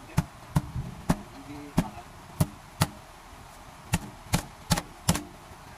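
Repeated sharp knocks as a knife strikes a live eel lying in a stainless steel sink, about ten blows at an uneven pace with a short pause about three seconds in.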